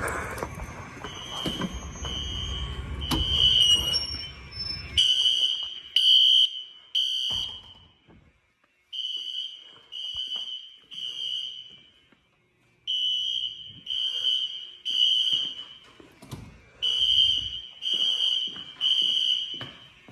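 Fire alarm horns sounding the temporal code-3 evacuation pattern: three short blasts, a pause, then three again, repeating. A rumbling noise sits under the horns for about the first five seconds.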